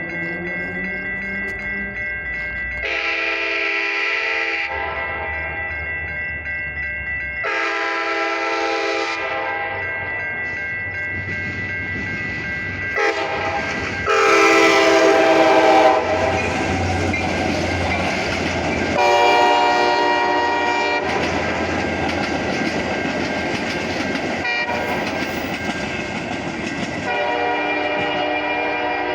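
Metra commuter train sounding its horn in several long blasts as it approaches and passes a grade crossing, wheels clattering over the rails. The crossing warning bells ring steadily throughout.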